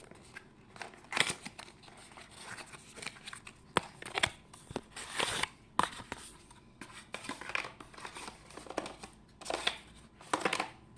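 Packaging being handled during an unboxing: irregular crinkling and rustling with scattered short clicks and scrapes.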